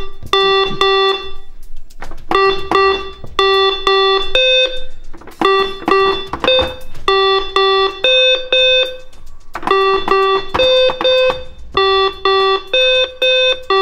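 Estrela Genius electronic memory game (a Simon-style toy) beeping as its coloured pads light in sequence and are pressed back: short buzzy electronic tones at two or three pitches, in runs of several beeps separated by brief pauses.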